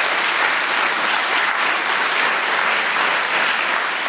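Audience applauding steadily in a hall at the end of a talk.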